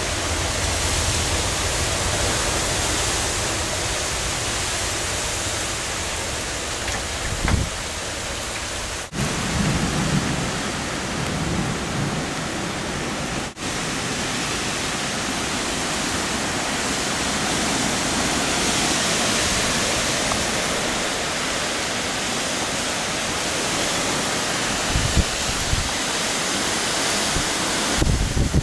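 Heavy rain pouring steadily during a severe thunderstorm, with a few low rumbles of thunder now and then.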